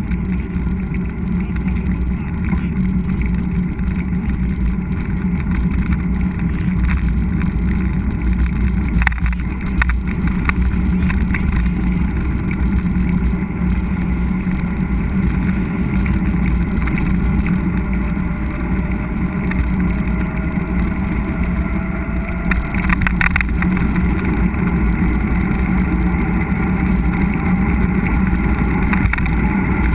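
Steady low rumble of wind and tyre noise from a mountain bike being ridden on a trail, heard through a bike- or rider-mounted GoPro, with a couple of sharp knocks from the bike.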